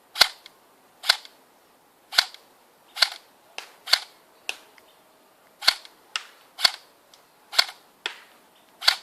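Airsoft replica gun firing single shots at a steady pace of about one a second, each a sharp crack, with a few fainter cracks in between.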